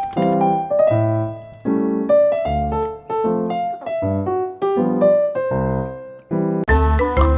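Background music: a bouncy melody of short piano or electric-piano notes. Near the end, a fuller passage with deep bass and sharp percussive hits comes in.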